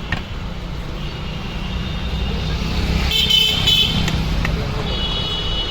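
A vehicle engine running with a steady low rumble, and a high horn-like toot about three seconds in and again near the end.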